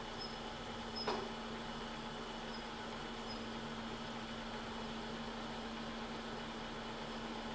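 Bridgeport milling machine running slowly with a steady hum while an adjustable boring head cuts the bore of a throttle body spacer, throwing off curled chips. A single sharp tick about a second in.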